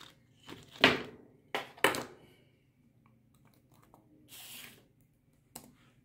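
Laptop keyboard keys being pressed: two sharp, loud clicks about a second apart near the start, then a few light taps, a brief rustle about four and a half seconds in and one more click near the end.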